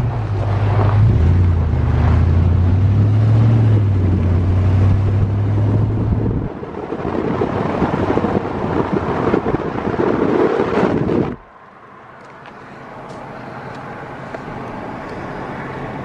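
Wind buffeting the microphone with a loud low rumble and rushing noise, cutting off abruptly about eleven seconds in to a much quieter steady hiss.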